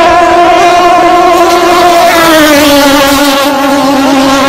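Racing speedboat engine running flat out at high revs with a steady droning tone, its pitch dropping a little about halfway through.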